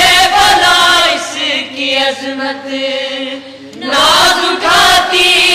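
Group of boys singing an Urdu manqabat, a devotional song, together, with long drawn-out notes. The singing softens about a second in and swells again, sliding upward, about four seconds in.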